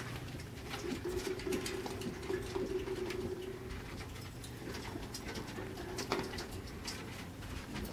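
Light clicking and tapping of a sugar glider moving about a wire cage, with a low wavering drone for a few seconds at a time, twice.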